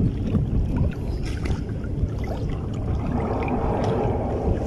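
Wind buffeting the microphone: a steady low rumble, with a few faint handling clicks.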